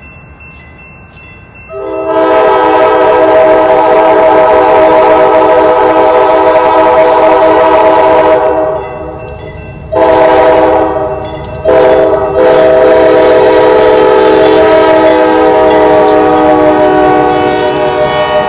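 Diesel freight locomotive's multi-chime air horn sounding close by. A long blast of about seven seconds, a short blast, then another long blast of about six seconds that fades near the end.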